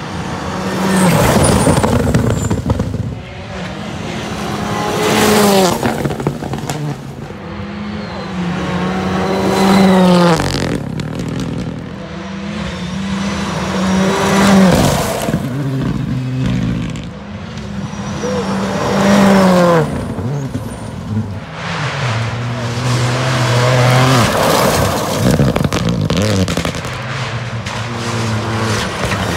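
Rally cars passing one after another at full throttle, each engine revving up and down through the gears and loudest as it goes by, about six passes in all.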